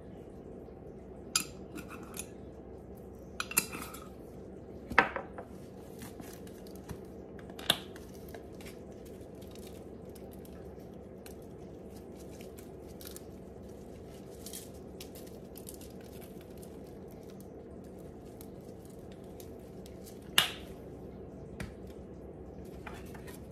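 A handful of sharp clicks and knocks as spice shakers and their lids are handled and set down on a tile countertop, the loudest about five seconds in and again near the end, over a steady low hum.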